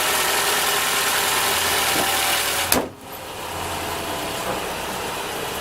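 Toyota inline-four engine idling steadily and smoothly on a fresh set of spark plugs. A sharp click comes about three seconds in, after which the idle sounds quieter.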